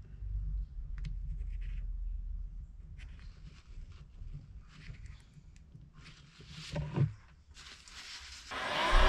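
Light handling of wires and plastic bulb holders on a bench, with a short bump about seven seconds in. Near the end a hot air gun switches on and blows steadily and loudly, used to shrink heat-shrink tubing over the bulb wiring.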